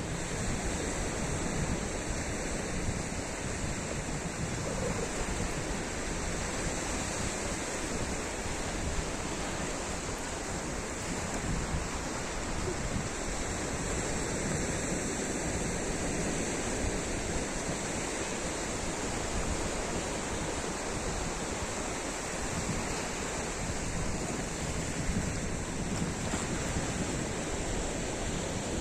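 Sea waves breaking and washing on a sandy beach, a continuous surf noise, with wind buffeting the microphone.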